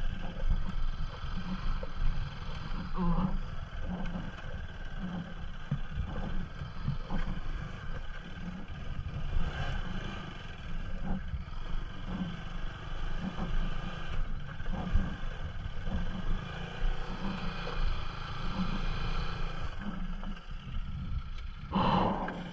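Bajaj Pulsar NS200's single-cylinder engine running at low speed on a rough dirt track, heard under heavy wind rumble on the rider's microphone.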